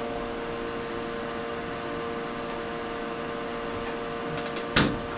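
A steady hum with a few even tones, then near the end a single sharp clunk as the Honda CRX's hood latch pops open.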